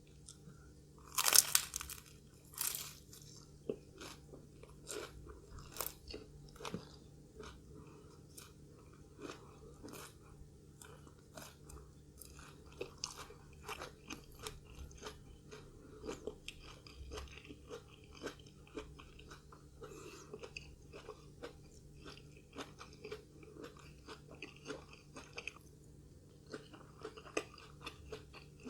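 Close-miked eating of a crunchy fried snack: a loud crisp bite about a second in, then steady crunching and chewing.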